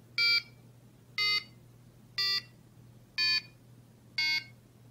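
Countdown timer beeping: five short electronic beeps, one a second, ticking off the count.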